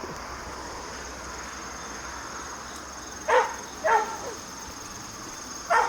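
A dog barks twice, two short barks about half a second apart, over a steady high chorus of insects.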